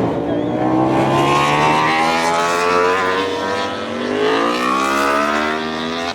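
Racing motorcycle engine accelerating hard, its pitch climbing, then falling back a little past the middle before climbing again.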